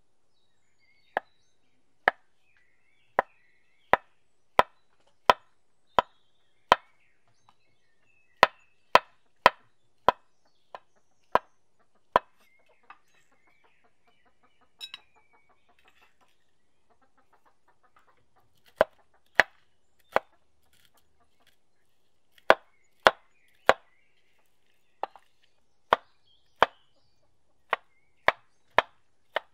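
Large chef's knife chopping on a wooden cutting board: single sharp knocks at an uneven pace of about one or two a second, with a pause of several seconds in the middle.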